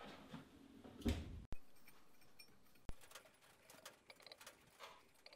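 Faint handling sounds: a soft knock about a second in, a click near three seconds, then light scattered ticks as a milled, welded steel gearbox housing is pressed at its corners on a surface plate under a dial test indicator, checking how flat its base is.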